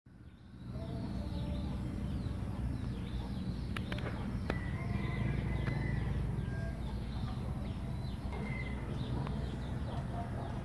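Small birds chirping over and over in short falling notes, with a few brief whistled notes, above a steady low rumble.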